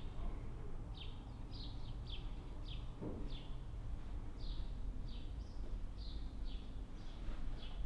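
A small bird chirping over and over, short falling chirps about twice a second, over a low steady rumble.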